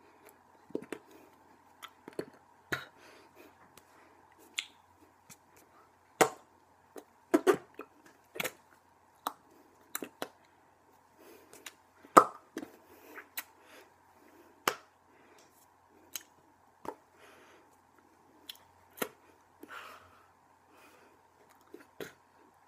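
Irregular sharp taps and smacks of hands and mouth during sign language signing, the loudest about six seconds in and twelve seconds in, over a faint steady hum.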